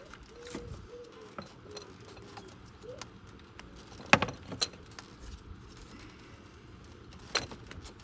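Metal clinks and clicks of a compression tester's hose and gauge coupling being handled and fitted to the cylinder adapter, with two sharp clicks about four seconds in and another near the end.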